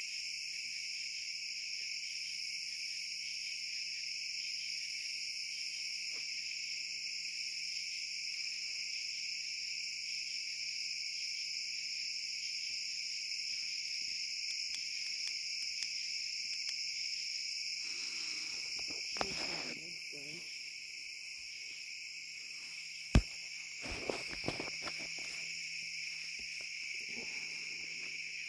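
Crickets chirping in a steady night chorus. About three-quarters of the way through there is a single sharp click, followed by a few softer clicks, with a brief stretch of handling or rustling noise a few seconds before it.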